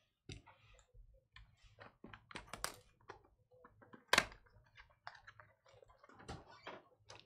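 Hands handling and opening a cardboard Bowman Chrome hobby box: a run of small taps, scrapes and crackles, with one sharper, louder click about four seconds in.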